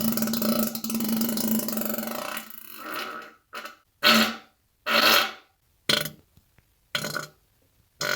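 A series of farts: one long fart with a steady low pitch lasting about three seconds, then about five short ones roughly a second apart, separated by silence.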